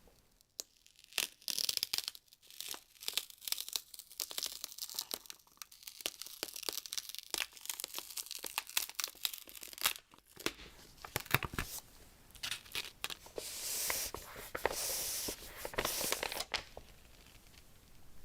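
Packaging being handled, torn and crinkled: irregular rustling and tearing with many sharp clicks, and a longer run of dense tearing about two thirds of the way through.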